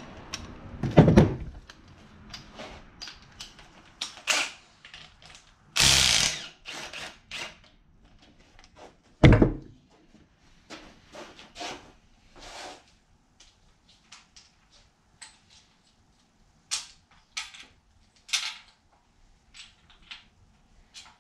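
Hand tools working on the top of a bare LT1 V8 engine: ratchet clicks and metal taps and clanks, with two loud knocks about six and nine seconds in.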